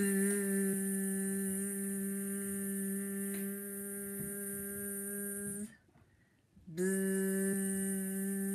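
A person's voice imitating a bee with a long, steady buzzing "bzzz" held for over five seconds. After a brief pause, a second buzz starts near the end.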